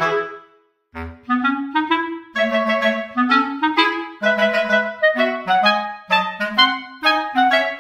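Instrumental background music, a tune of short quick notes. It cuts out briefly and starts again about a second in.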